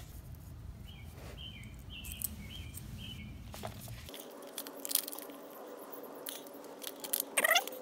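Small bolts and a hard plastic mount being handled and fitted by hand, giving a few faint clicks and taps over a low background hum.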